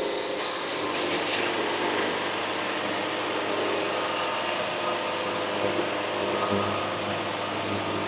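Wood-Mizer band sawmill's blade cutting through a poplar log, a steady sawing hiss over the mill's running engine.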